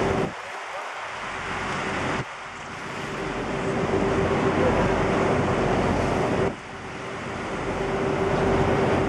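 A boat's engine running with a steady hum under a loud rush of wind and water noise. The rush drops off suddenly three times and each time builds back up.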